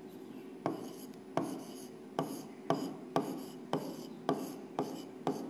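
Stylus writing on the glass face of an interactive smart board, a word written stroke by stroke: about nine sharp taps, each trailing into a short scrape, roughly two a second.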